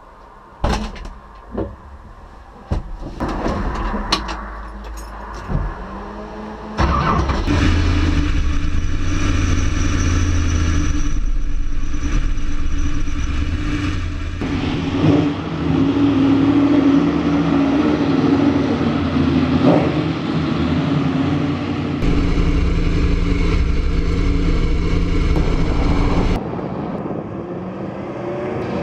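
Ford Indy four-cam V8 in a 1966 Mustang race car: a few sharp revs in the first six seconds, then the engine running loudly and steadily, with several sudden changes in its sound.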